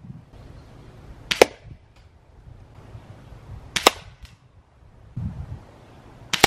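Air Venturi Avenger .25 caliber PCP air rifle firing three sharp shots about two and a half seconds apart, its lead projectiles striking a clay block.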